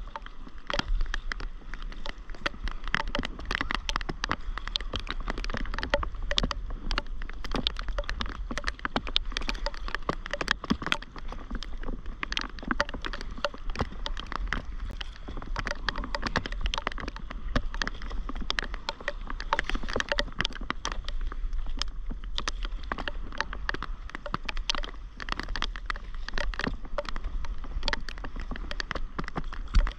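Rain falling on the sea, the paddleboard and the camera housing: a dense run of irregular small taps, with water splashing from paddle strokes, over a steady low rumble.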